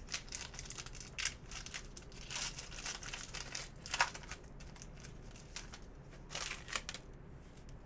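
Baseball trading cards being handled and flipped through, with a run of irregular papery flicks and rustles as cards slide against each other.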